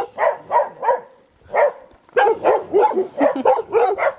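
Dogs barking in quick runs of short barks, with a brief pause a little after a second in.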